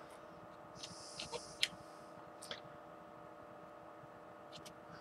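Light clicks and a short scrape of a screwdriver backing off the gib adjusting screw on a CNC mill, over a faint steady hum.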